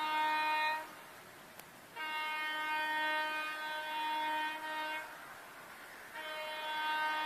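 Diesel locomotive horn blowing one steady tone in three blasts: a short end of one blast at the start, a long blast of about three seconds in the middle, and another starting near the end.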